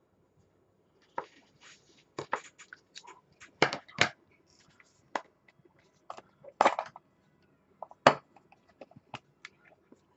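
Clear hard-plastic packaging crackling and clicking in the hands as the box is handled and opened, with tape tabs being pulled off it: a string of sharp, irregular clicks and crinkles.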